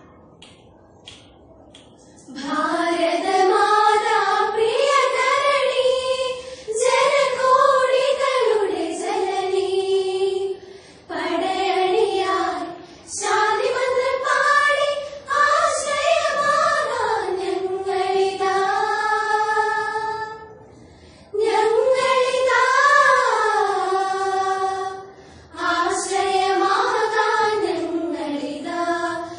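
A group of schoolgirls singing a patriotic song together in unison and without accompaniment, in phrases separated by short breaths. The singing starts about two seconds in, after a few faint clicks.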